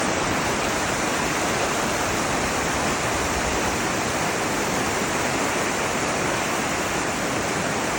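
Steady rushing of flowing water, like a stream or small waterfall, an even unbroken hiss.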